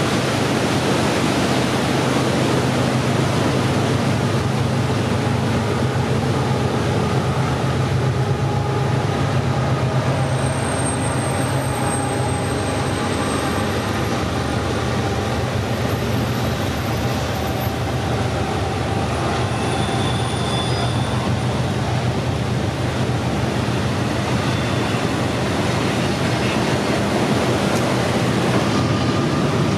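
BNSF freight train rolling past with a steady, loud rumble of wheels on rail under a low drone, with a thin high squeal about ten seconds in.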